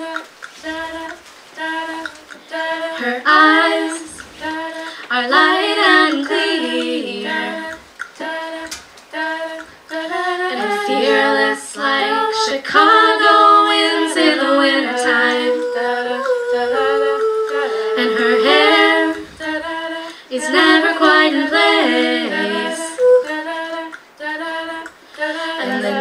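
Women's a cappella group singing in close harmony, several voices at once with no instruments. Short, clipped repeated chords at first, then longer held chords with a high line over them.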